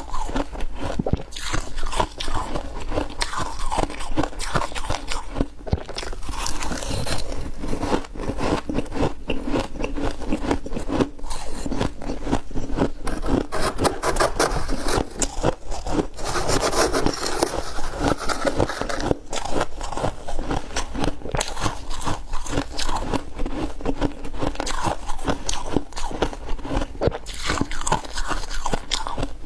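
Close-up crunching and chewing of crunchy ice, a dense run of crisp cracks with no pauses, along with a spoon scraping the ice.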